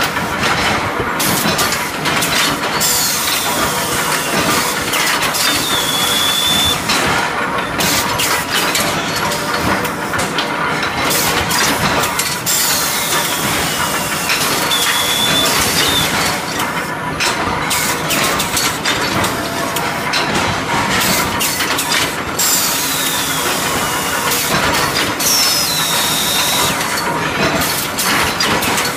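Induction bar-heating line in a forging shop running: steady loud machine noise and hiss with frequent clanks of steel bars. Three times, about ten seconds apart, a high falling whine ends in a short steady high tone.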